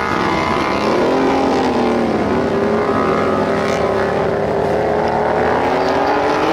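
Engines of tracked ATVs running hard as the machines spin through deep snow. The pitch dips and rises with the throttle.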